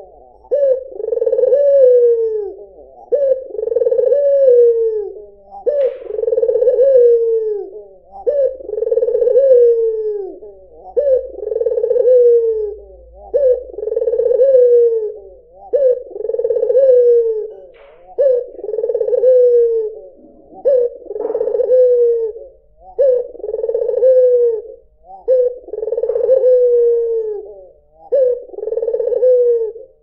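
White (albino) domestic ringneck dove, the Indonesian 'puter', cooing over and over: a low rolling coo that drops in pitch at its end, repeated about every two seconds.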